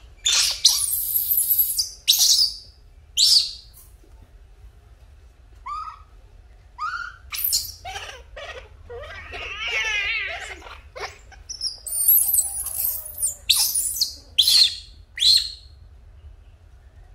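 Baby macaque crying: a dozen or so short, high-pitched squeals, with a few softer rising calls and a longer wavering cry about ten seconds in.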